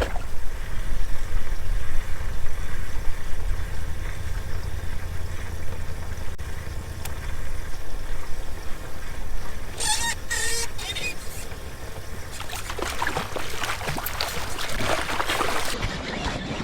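Bass boat's motor running steadily with a low rumble and a faint whine. Short splashes come about ten seconds in, and a longer stretch of water splashing and rustling follows near the end.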